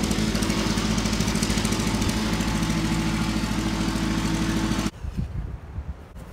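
An engine running steadily at an even idle, with a quick regular pulsing beat; it cuts off abruptly about five seconds in, leaving faint wind noise.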